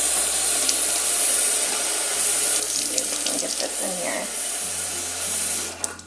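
Kitchen faucet running water into a clear plastic wet-vacuum water tank held over a stainless steel sink, filling it; the tap is shut off near the end.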